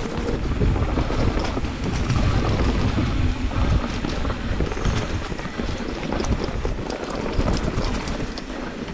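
Wind buffeting the microphone: a loud, uneven low rumble with scattered faint clicks.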